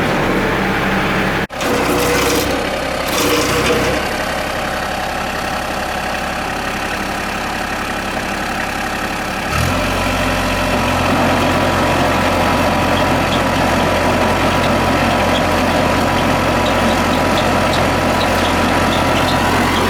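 New Holland TC33DA tractor's three-cylinder diesel engine running steadily. About halfway through the sound changes and a steady low hum sets in.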